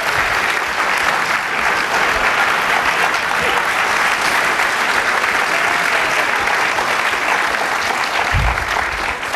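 Large audience applauding, a steady dense clapping that eases off near the end.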